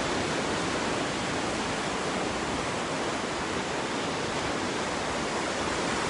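Steady rushing noise of wind and breaking sea surf, with the wind flickering on the phone's microphone.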